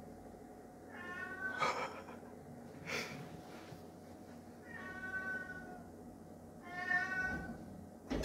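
A domestic cat meowing three times, the second and third calls longer than the first. Two short, sharp noises come between the first and second meows.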